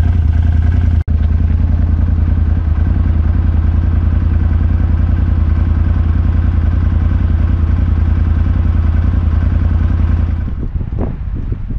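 Can-Am Maverick side-by-side's engine running at a steady, even drone while driving a rough dirt trail. The sound cuts out for an instant about a second in and drops away near the end.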